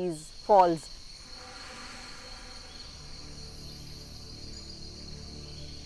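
Crickets trilling steadily on one high note, as forest ambience.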